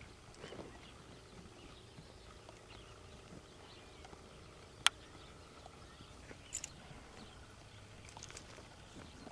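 Tennessee Walking Horse walking on soft arena dirt: faint, muffled hoof falls and tack sounds, with a single sharp click about five seconds in and a few smaller clicks later on.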